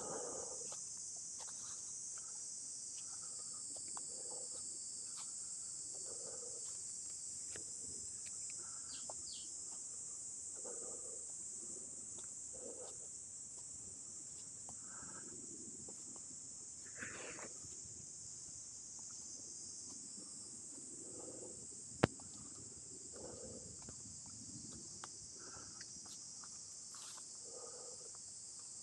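A steady high-pitched insect chorus, with footsteps crunching through dry leaf litter about once a second. About two-thirds of the way through comes a single sharp click.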